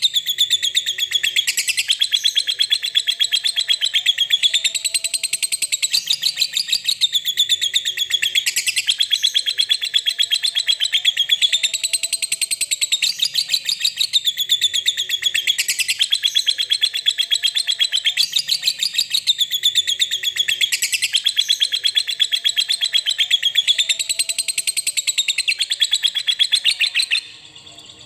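Lovebird 'ngekek' call: one long, unbroken, rapid high-pitched chatter that rises and falls in pitch every few seconds. It cuts off suddenly about a second before the end.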